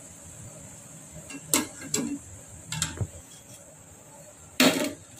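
A wire-mesh skimmer knocking against the kadhai and the bowl while fried Manchurian balls are lifted out of hot oil: four sharp metallic knocks, the loudest near the end, over a faint steady sizzle of frying oil.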